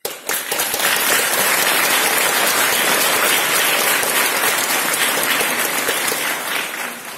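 Audience applause, starting abruptly and dying away near the end.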